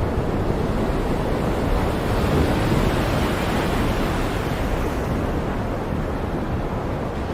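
Stormy sea with heavy surf and wind: a continuous rough wash of water, swelling slightly a few seconds in and easing toward the end, with no single wave crash standing out.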